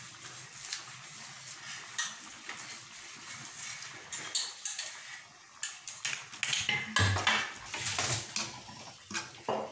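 Metal slotted spoon clinking and scraping against a large metal kadai as a thick curry is stirred, busiest and loudest in the last few seconds.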